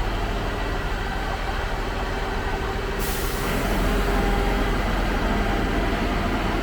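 Concrete pump truck's engine running steadily while its boom is raised, with faint steady whining tones over the engine. About three seconds in a hiss starts suddenly and keeps going.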